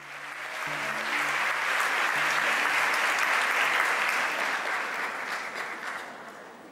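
Audience applauding, building over the first two seconds and dying away near the end, over the last faint low notes of the music.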